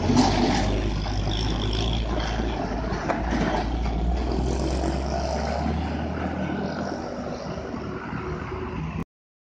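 Heavy diesel trucks and road traffic running steadily, a low engine drone with road noise that eases slightly, then cuts off suddenly near the end.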